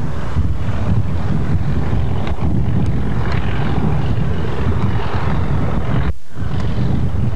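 Two Class 37 diesel locomotives with English Electric V12 engines working hard up a gradient with a heavy iron ore train: a steady low drone mixed with wind noise on the microphone. The sound cuts out briefly about six seconds in.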